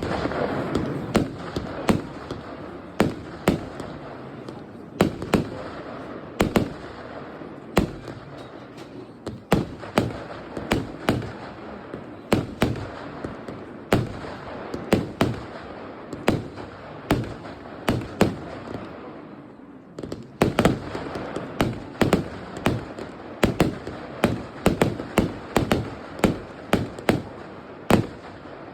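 Funke 'Iskra Anioł' firework going off: a long run of sharp bangs at irregular spacing, roughly one to two a second, over a steady hiss. There is a short lull about two-thirds of the way through, after which the bangs come faster.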